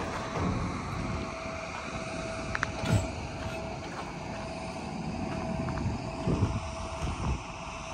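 Pickup truck slowly towing a Brent 740 gravity wagon over a gravel driveway: a low vehicle rumble, with wind gusting on the microphone.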